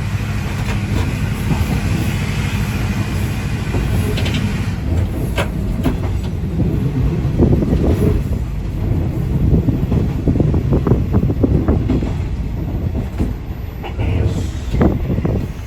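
Ex-JNR KiHa 205 diesel railcar on the move: a steady low engine drone, then from about six seconds in a stretch of dense, uneven knocking and rattling from the wheels and car body on the track, easing off near the end.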